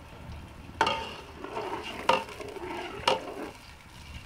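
Metal spoon stirring and scraping food in a cooking pot, knocking against the pot three times with short ringing clinks, while the food fries.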